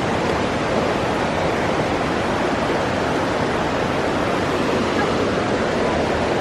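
Steady rush of water from a small waterfall on a stream, an even noise with no breaks.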